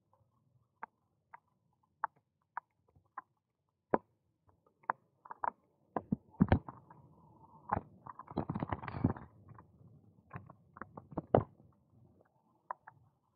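Irregular clicks and knocks from a bicycle and its mounted camera rattling over bumps in a tarmac cycle path, with a denser clatter of knocks and rough rolling noise about six to nine seconds in.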